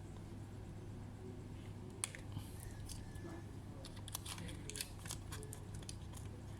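Light clicks and taps of small laptop parts being handled, scattered through the second half and bunched around the middle, over a steady low hum.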